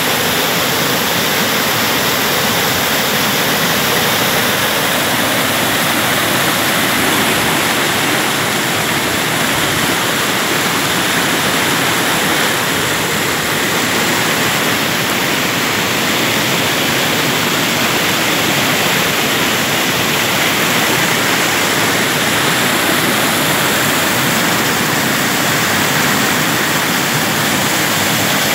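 Loud, steady rush of whitewater pouring over a rocky waterfall and cascading through the rapids below, an even, unbroken roar.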